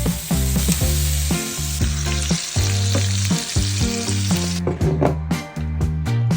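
Food sizzling as it fries in a hot pan, over background music with a strong, rhythmic bass line. The sizzling cuts off suddenly about four and a half seconds in, and the music carries on.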